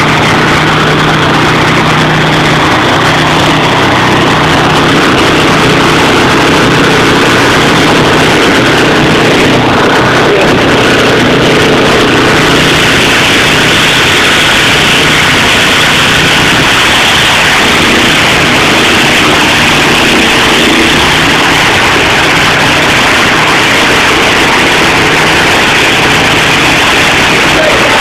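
Stump grinder's engine running steadily and loudly, with a harsher, brighter noise building up about twelve seconds in.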